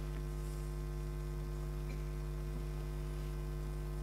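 Steady low electrical mains hum with several overtones, unchanging throughout.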